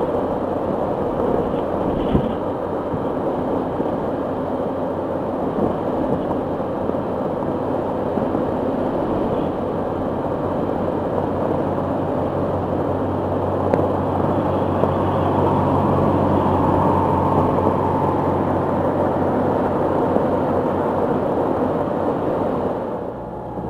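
Wind rushing over the microphone and the Can-Am Spyder's Rotax three-cylinder engine droning steadily at highway speed. It grows briefly louder around the middle as a pickup truck overtakes.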